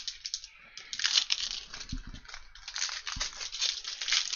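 Foil trading-card pack wrapper crinkling as it is torn open by hand. There are two soft low thumps, about two seconds in and about three seconds in.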